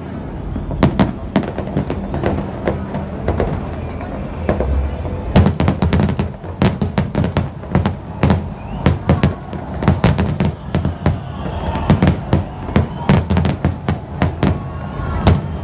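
Aerial fireworks shells bursting in quick, irregular succession: many sharp bangs over a low rumble, coming thicker from about five seconds in.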